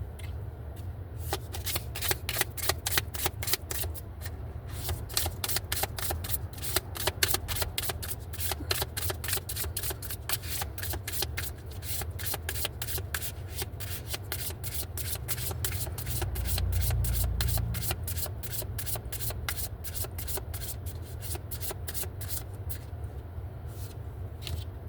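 A deck of oracle cards being hand-shuffled: a long run of rapid card flicks and rubbing.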